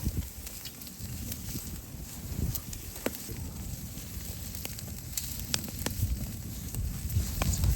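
Wood fire in a fire-pit brazier crackling, with a few sharp pops scattered through, over a low rumbling background.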